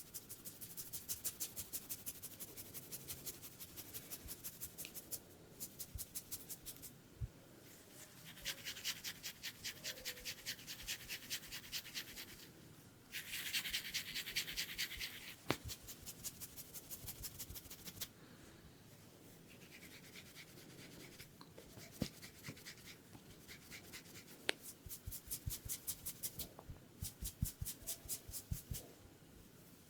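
Head massage: quick rhythmic rubbing and scratching strokes over the hair and scalp, a few strokes a second, in runs broken by short pauses, with a few sharp clicks in between.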